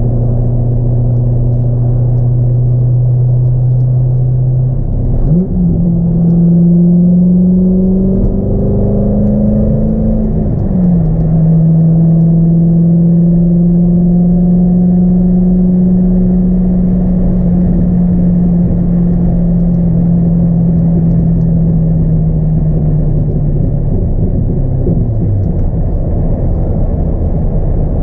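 2002 C5 Corvette's 5.7-litre LS1 V8 with a cold air intake, heard from inside the cabin while driving: it runs at a steady cruise, then about five seconds in pulls harder with the engine note rising for about five seconds, drops suddenly at a shift, and holds a steady note that eases down slightly before dropping again near the end. Road and tyre noise lies underneath.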